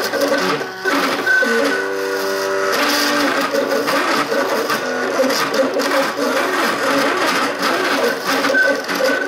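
MakerBot Cupcake 3D printer's stepper motors running as the print head and platform move through a print, whining in tones that jump in pitch from one move to the next.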